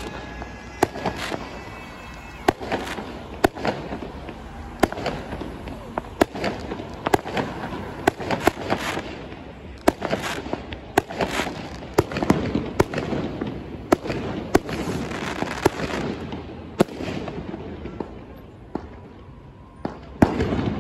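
Fireworks and firecrackers going off all around: an irregular string of sharp bangs and cracks with crackling between them. The bangs thin out for a few seconds near the end, then pick up again.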